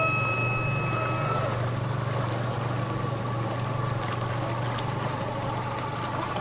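A small boat's motor running steadily with a low hum, over a haze of outdoor noise. A held high musical note fades out in the first second or so.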